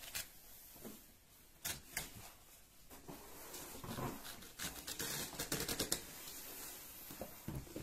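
Drawstring cord pulled through the metal eyelets of a fabric shopping-trolley bag to cinch its top shut: fabric rustling with scattered light clicks, and a quick run of rasps about five to six seconds in.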